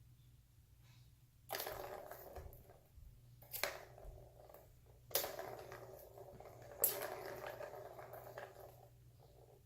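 Balls of a Petstages Tower of Tracks cat toy, set off by a kitten's swats, rolling around the tower's plastic tracks. There are four goes, each a sharp knock followed by a rolling rattle that lasts a second or two.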